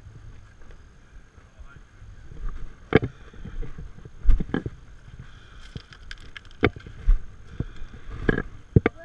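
Boot footsteps on loose rocks and gravel: irregular crunches and sharp knocks of hard-soled motocross boots stepping and scrambling over boulders, about seven of them.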